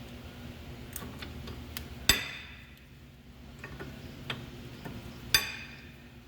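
Light metal clicks and two sharp, ringing metallic clanks, about two and five seconds in, as brake pads and their spring-steel hardware clips are handled and seated in a disc-brake caliper bracket.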